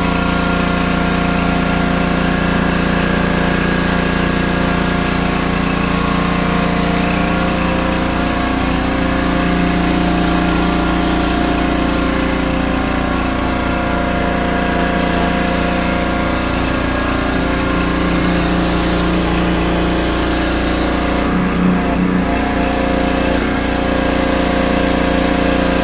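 Small pressure washer running steadily under load, with the hiss of water jetting from a 16.5-inch stainless steel surface cleaner's spinning dual-jet bar onto concrete.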